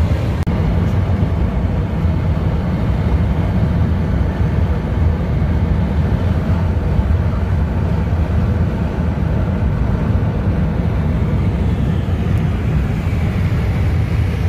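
Steady low road and engine rumble heard inside the cabin of a moving Nissan car.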